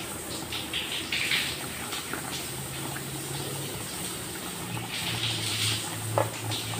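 Asam pedas gravy simmering in a pot, bubbling in soft irregular bursts over a low steady hum that comes in a couple of seconds in. A short knock sounds about six seconds in.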